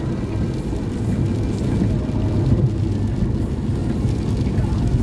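Steady low rumble of a car's road and tyre noise on a wet freeway, heard from inside the cabin.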